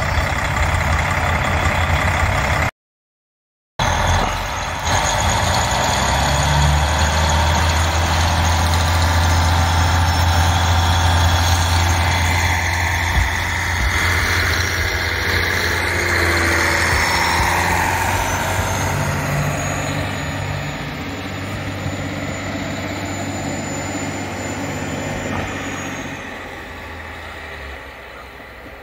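KiHa 40 diesel railcar's engine running with a steady low drone as the railcar pulls away and passes close by, then fading as it draws off into the distance. The sound cuts out completely for about a second a few seconds in.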